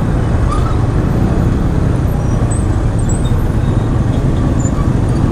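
Steady, low-heavy rumble of a motorcycle running in dense city traffic, its engine and road noise blended with surrounding vehicles.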